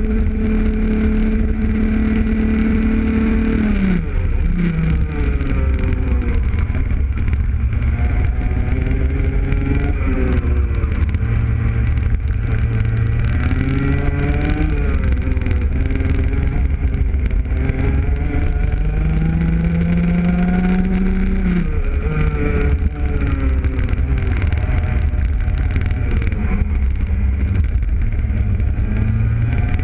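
Rotax Junior kart's 125cc two-stroke engine at racing speed, heard onboard. Its pitch holds high at first, drops sharply about four seconds in as the kart lifts for a corner, then climbs and falls through a run of corners. A long climb ends in another sharp drop about twenty-one seconds in.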